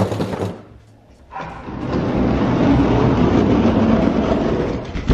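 Diecast toy monster trucks rolling and rattling down an orange plastic Hot Wheels track, a steady rumble that starts about a second in.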